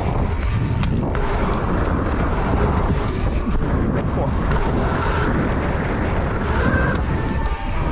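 Mountain bike ridden at speed on a dirt course, heard from a rider-mounted camera: a steady rush of wind over the microphone with rolling tyre noise.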